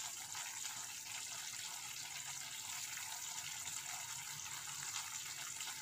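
A thick ginger-and-sugar mixture boiling in a pan, giving a steady bubbling hiss as it thickens toward the candy stage.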